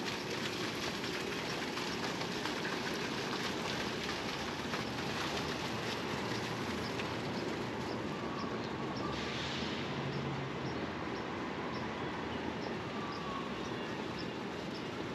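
Steady wideband rush of outdoor city background noise. In the second half, light footsteps tick about twice a second.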